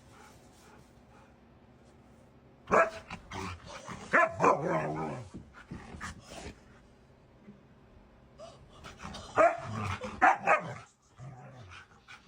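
Husky vocalizing in two bouts of short barks and whining calls, about three seconds in and again about nine seconds in.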